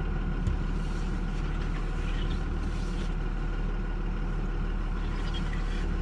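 Pickup truck heard from inside the cab while driving: a steady low engine hum with road noise, and a brief knock about half a second in.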